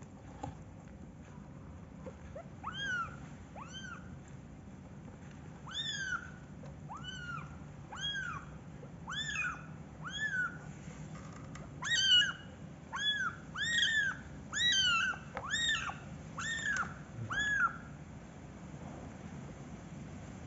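A kitten meowing repeatedly in high-pitched cries, each one rising and then falling in pitch, about one a second, coming louder and closer together over the last few seconds before stopping.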